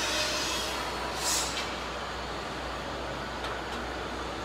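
Steady running noise of a CNC oscillating knife cutting machine over a low hum, with a short hiss of air about a second in and two light clicks later on.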